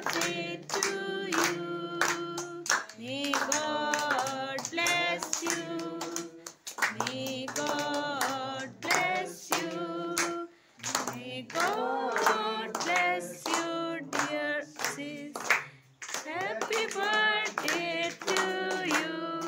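Singing voices carrying a song in phrases, accompanied by hand-clapping on a steady beat.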